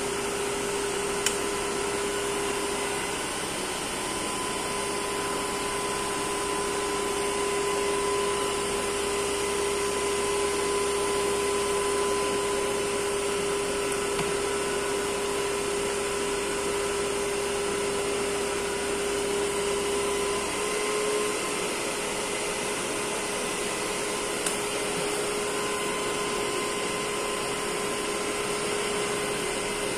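DC shunt motor driving a 3.5 kVA alternator, running steadily with a whirring hum and a steady whine, the alternator on open circuit. About two-thirds of the way through, the low hum drops away and the whine shifts slightly in pitch.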